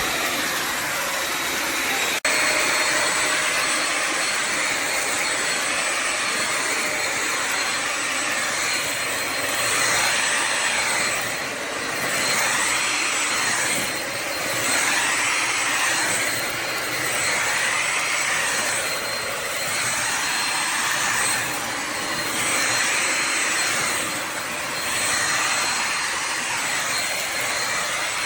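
Bissell Symphony Pet vacuum and steam mop with its vacuum motor running, a steady whining rush that swells and fades about every two seconds as it is pushed back and forth across the floor.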